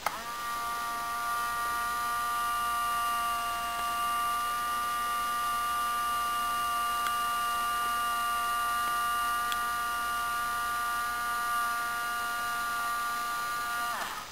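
Onboard sound module of a Rapido model steam generator car playing its steam-generator sound through a small speaker: a steady electronic tone with several overtones. It switches on with a click and cuts off near the end.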